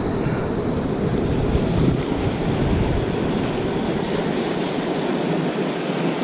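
Steady rush of river current flowing around a wading angler's legs, with wind rumbling on the microphone.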